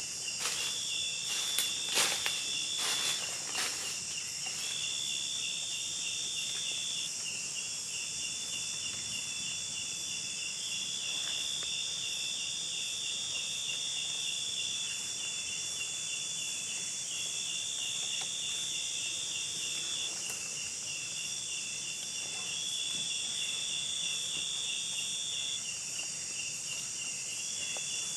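Steady chorus of forest insects: a fast pulsing trill runs throughout, and a higher steady buzzing tone switches on and off every one to three seconds. A few sharp clicks sound in the first few seconds.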